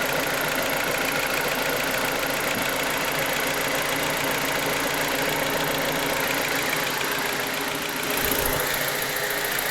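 BMW N45B16 1.6-litre four-cylinder engine idling steadily, its fuel injectors ticking audibly. The timing-chain/VANOS rattle is gone, the sign that the newly replaced VANOS unit has cured the knock.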